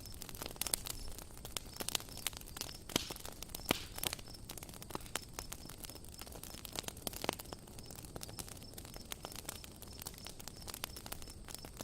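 Campfire crackling: irregular sharp pops and snaps of burning wood over a low hiss.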